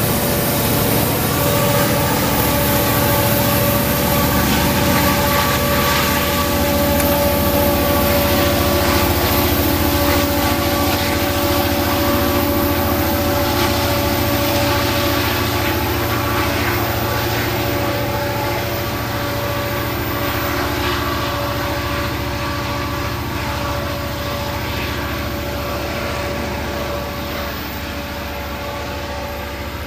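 Diesel-electric freight locomotives (GE AC44i and EMD SD70ACe) working hard under full load up a grade at the head of a heavy iron-ore train, a steady deep engine rumble with a constant whine on top. It grows gradually fainter over the second half.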